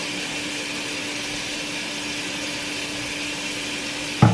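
Steady motor-like hum with a hiss. About four seconds in comes one sharp knock as a plastic toner bottle is set down on the bathroom counter.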